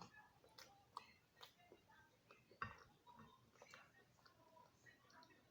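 Near silence with faint, scattered small clicks and taps, and one slightly louder knock about two and a half seconds in.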